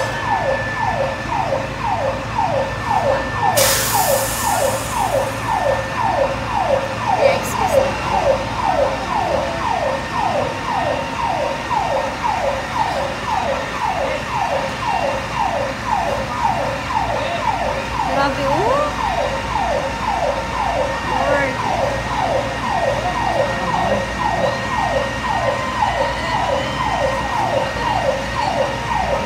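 Fire truck siren sounding continuously in rapid falling sweeps, about two a second. A brief burst of hissing noise comes about four seconds in.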